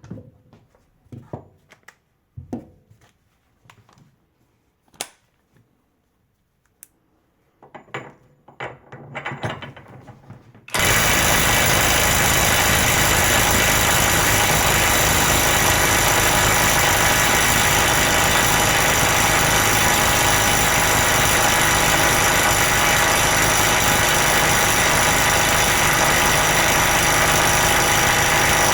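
A few handling clicks and knocks. About eleven seconds in, a 12V cordless impact wrench starts hammering and keeps hammering steadily without a break. It is trying to loosen a nut tightened to about 432 Nm, which is too much for the Parkside.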